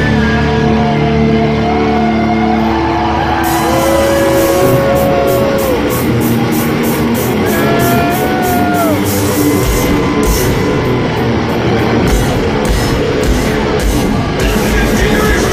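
A heavy metal band playing live in an arena, recorded from the audience: distorted electric guitars with held and bending notes. Drums and cymbals come in hard about three and a half seconds in.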